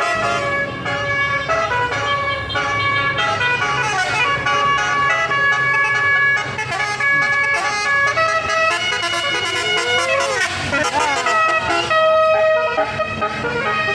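Bus basuri (telolet) horn playing a melody of several tones at once, stepping from note to note, over the low drone of the bus engine. About ten seconds in, the tones give way to a stretch of sliding, wavering pitches before the melody returns.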